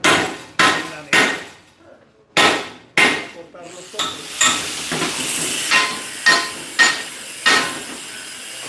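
About five sharp, ringing hammer blows on a steel rod bent into a ring. Then, from about four seconds in, an angle grinder runs and cuts into the steel, louder each time it bites.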